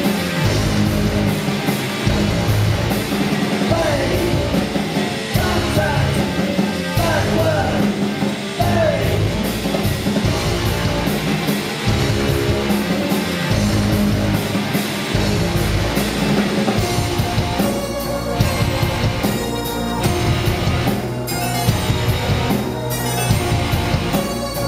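Live industrial rock band playing loud, with drums and distorted instruments, heard through a compact camera's built-in microphone.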